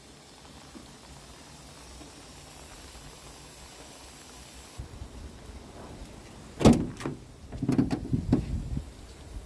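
A truck's side storage locker lid slammed shut: one loud bang about two-thirds of the way in, followed by a cluster of knocks and rattles.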